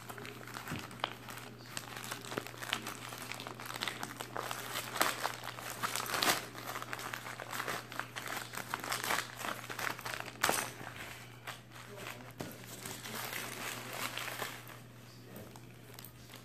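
A shiny foil packaging bag crinkling and crackling as it is handled and opened, in irregular bursts, the sharpest about six and ten seconds in, easing off near the end.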